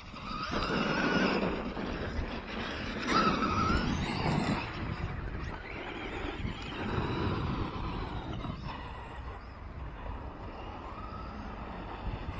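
Electric RC monster trucks driving on dirt: the motor whine rises and falls with the throttle over tyre noise, with louder bursts of acceleration about a second and three seconds in.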